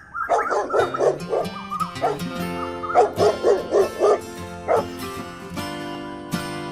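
A dog yipping and whimpering in clusters of short high calls, about a second in, again around three seconds and once near five seconds, over background music.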